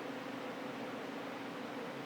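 Steady background hiss with a faint low hum: room tone, with no distinct handling or cutting sounds.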